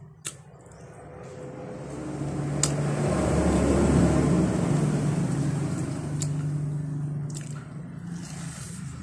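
Wet sucking and squishing mouth sounds of someone sucking on an ice pop, with a few sharp clicks. Under them runs a low steady hum that swells to its loudest about four seconds in and then slowly fades.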